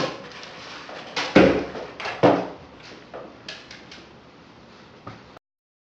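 Several sharp knocks and thumps of things handled on a desk, the loudest about a second and a half in, followed by a few lighter clicks; the sound cuts off suddenly near the end.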